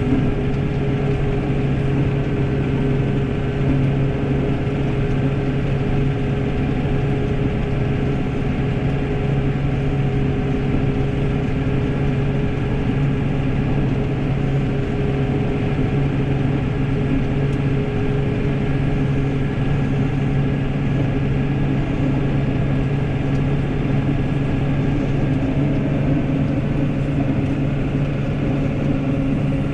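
New Holland tractor's diesel engine running at a steady speed while pushing a front snowplow blade through snow.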